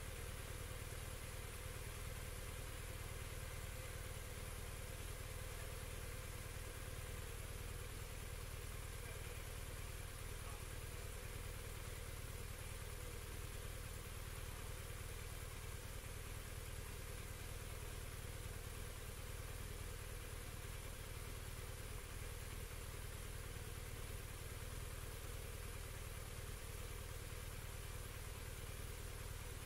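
A vehicle engine running steadily with a low, even hum, with no revving or change in speed.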